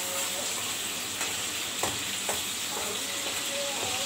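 Ginger-garlic paste sizzling in hot oil in an aluminium karahi, stirred with a metal slotted spoon that clicks twice against the pan about two seconds in.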